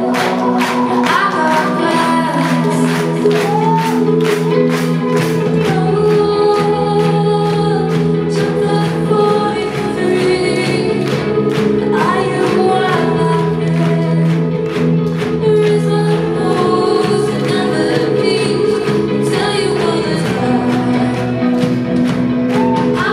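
Live indie rock band playing: electric guitars, bass and drums with a female lead vocal, heard from the audience in a concert hall.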